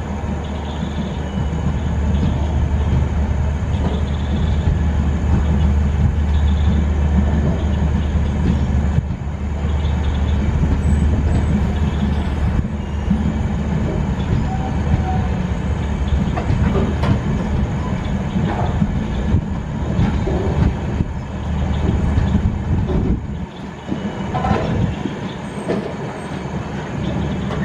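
LHB passenger train running on the rails: a steady rumble of coach wheels on the track that eases a little about twenty-three seconds in.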